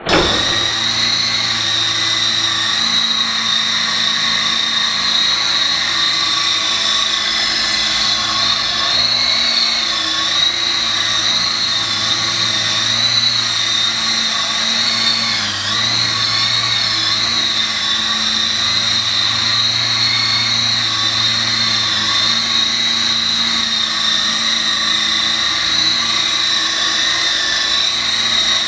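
E-sky Lama coaxial electric RC helicopter in flight: a steady high motor whine over a lower hum, the pitch wavering slightly and dipping briefly about halfway through.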